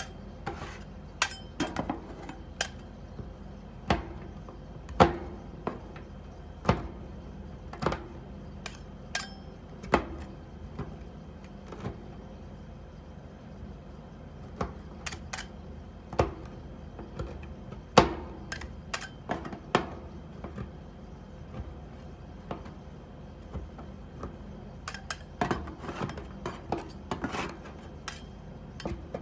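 Two metal spatulas chopping a chocolate bar with almonds on a frozen steel rolled-ice-cream pan: irregular sharp clacks of the blades striking the pan, about one a second, coming quicker near the end.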